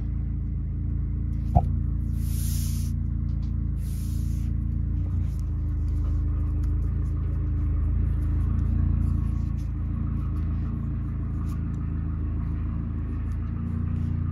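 A steady low hum made of several held tones, with faint rustles and ticks of nylon paracord being handled. A sharp click about one and a half seconds in, and two short hissing swishes around two and four seconds in.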